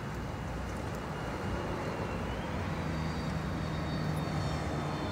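Steady outdoor vehicle engine and traffic rumble. A faint high whine steps up in pitch about halfway through, and a low engine hum comes in soon after.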